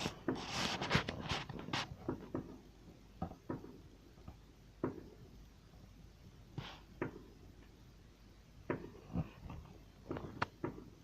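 Distant fireworks going off: a quick flurry of crackling pops at first, then scattered single bangs, with a few more close together near the end.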